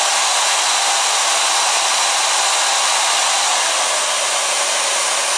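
Tool Science Moisture Balance Digital Pistol hair dryer, a 1600-watt dryer, running steadily on its lowest temperature setting (105°F): an even rush of air with a faint steady high whine.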